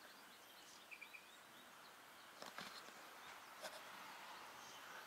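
Near silence: faint outdoor ambience, with a few faint bird chirps about a second in and a couple of soft clicks later on.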